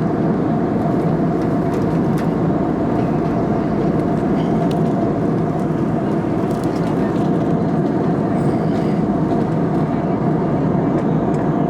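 Steady cabin noise of a jet airliner in flight: an even rushing drone of engines and airflow, with a constant hum running through it.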